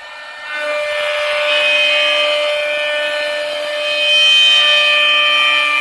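CNC router spindle running and cutting a wooden chair back: a steady high whine with a cutting rasp, swelling about half a second in and louder again near the end.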